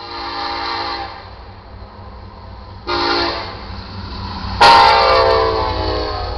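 Multi-chime air horn of a diesel freight locomotive (EMD SD70ACe) sounding at a grade crossing: a blast of about a second, a short blast, then a louder long blast that holds on. This is the long–short–long end of the standard crossing warning. A steady low rumble of the approaching train runs underneath.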